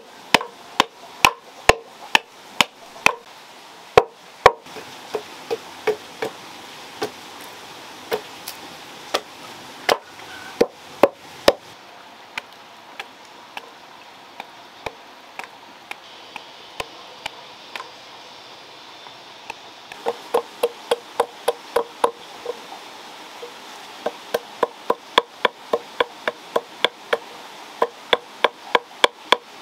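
Machete chopping into a block of wood held upright on a log: sharp, separate wooden chops, a few a second. The chops thin out midway, then come in quicker runs over the last ten seconds.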